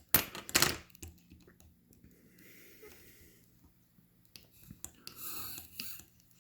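A person breathing close to the microphone: a sharp, noisy breath just after the start and a longer breath about five seconds in, with a few faint small clicks and a low steady hum between them.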